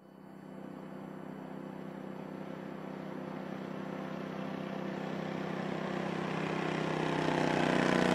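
Engine of a Kawasaki-powered land speed record vehicle running flat out at a steady pitch as it approaches, growing steadily louder.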